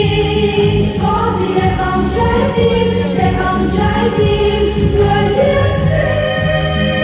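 A group of singers, choir-like, singing long held notes over instrumental accompaniment.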